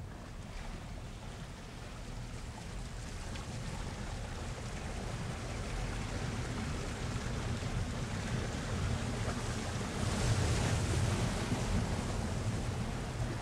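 A steady rushing noise with a deep rumble beneath it, swelling gradually and loudest about ten seconds in.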